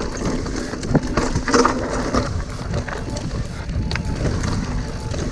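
Mountain bike ridden down a dirt trail: tyre noise and the bike rattling and knocking over bumps, with wind buffeting the microphone.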